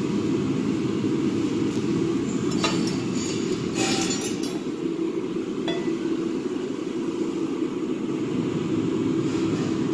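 Forged iron pieces and a steel chain clinking a few times as they are handled, between about two and a half and six seconds in, over a steady low hum.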